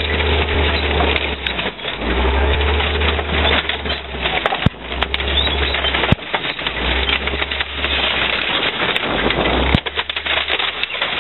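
Chieftain tank coming off a crushed Subaru car: the tank's low engine rumble over a steady crunching and crackling of the flattened car body, with sharp cracks of breaking metal and glass about four and a half, six and ten seconds in.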